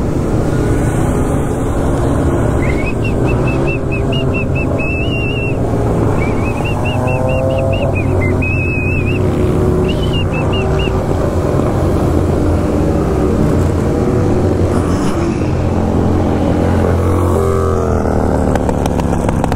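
Sport-bike engine running under way with heavy wind rush on the microphone, and other motorcycles revving nearby, rising late on. A high, wavering chirping tone comes and goes for several seconds, starting about three seconds in.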